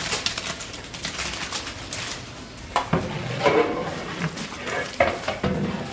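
Metal cooking utensils clattering: quick light clicks and clinks, then louder, busier clanking and scraping from about three seconds in.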